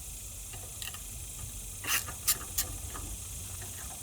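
A few short, sharp clicks and scrapes of hand tools working on the valve cover bolts of a small 79cc engine, about two seconds in, over a steady low hum and hiss.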